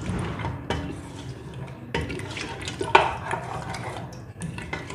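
Wooden spoon stirring and scraping mutton around an aluminium pressure cooker pot, knocking against the pot now and then, with the clearest scrapes about two and three seconds in.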